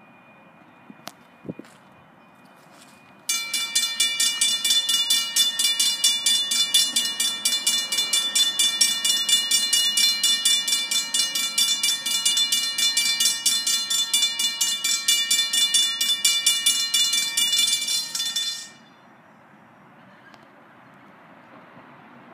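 Two Safetran hybrid railroad-crossing bells ringing in rapid, even strokes. They start about three seconds in and cut off abruptly about fifteen seconds later, once the crossing gates are fully down. They are warning of an approaching light-rail train.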